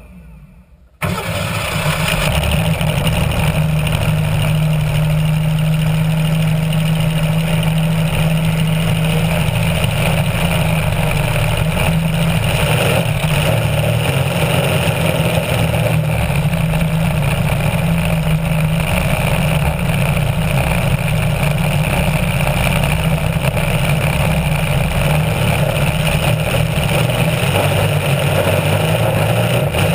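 Racing hydroplane's engine catching suddenly about a second in, then running hard and steady at high revs as the boat skims across the water, heard from on board with wind and spray noise over it.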